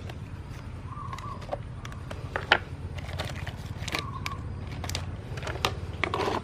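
Electric nut grinder running with a low hum while crushing coconut biscuits: irregular crunches and sharp cracks, one loud crack about two and a half seconds in.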